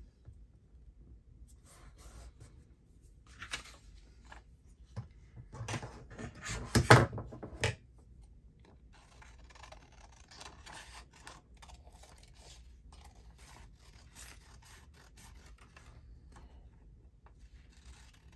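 Paper being handled and cut with scissors: a louder burst of paper rustling about seven seconds in, then a run of quick short snips through the second half.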